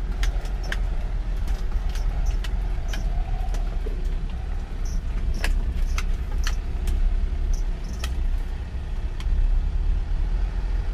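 Isuzu Elf campervan heard from inside the cabin while driving: a steady low engine and road rumble, with irregular sharp clicks and rattles over it.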